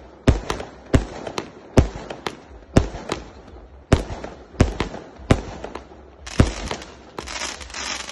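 Fireworks going off in a string of sharp bangs, about one a second, with a dense crackling near the end.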